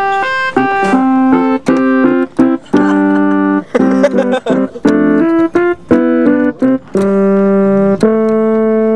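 Casio home keyboard sounding an organ-like tone: a tune of steady held notes and chords that change every half second or so, each note starting and stopping abruptly, with short breaks between phrases.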